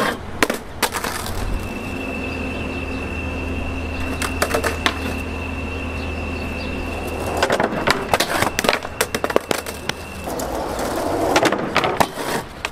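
Skateboard wheels rolling on concrete for several seconds, with sharp clacks of the board hitting the ground at the start and again later.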